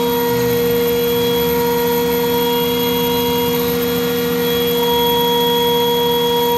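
Running machinery of an M1 Abrams tank heard inside the turret: a steady drone with several constant high tones layered over it.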